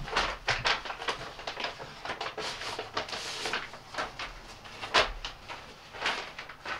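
Pen writing on paper and sheets of paper being handled at a desk as documents are signed: short, irregular scratching and rustling strokes, with a sharper one about five seconds in.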